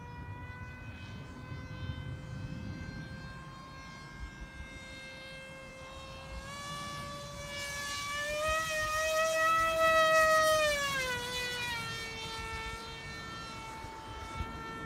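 An Emax brushless motor spinning the propeller of a radio-controlled model plane in flight, giving a steady high whine. From about six seconds in, the whine grows louder and higher, is loudest around ten seconds, then drops in pitch and fades back to a steady whine.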